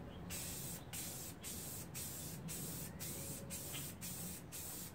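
Aerosol spray can of primer hissing in short bursts, about two a second, as a coat of primer is sprayed on.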